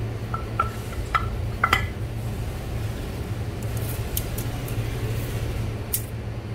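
Light metallic clinks and knocks as an aluminium-bodied pneumatic air cylinder is handled and set down among other cylinders: about four sharp, briefly ringing knocks in the first two seconds, then a few faint ticks, over a steady low hum.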